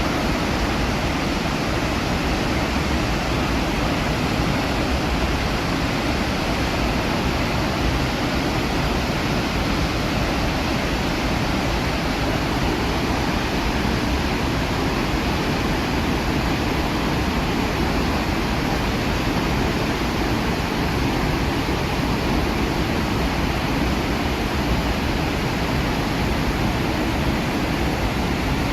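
Roar of the Iguazu Falls: a steady, dense rush of falling water with no breaks or distinct events.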